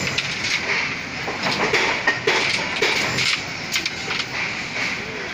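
Building-site noise: irregular metallic clanks and knocks, several a second, over a steady background hiss.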